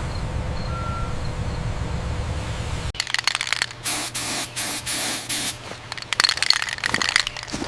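Low steady rumble that cuts off abruptly about three seconds in, followed by a run of loud, irregular hissing bursts over a steady low hum.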